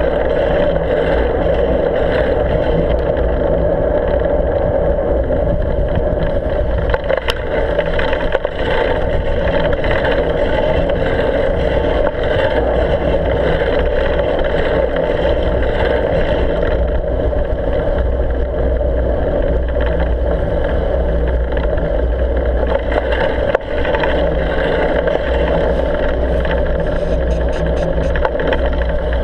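Steady rumbling ride noise from the handlebars while riding along a snowy, slushy road: tyre noise, wind and rattle, with no rise or fall in pitch.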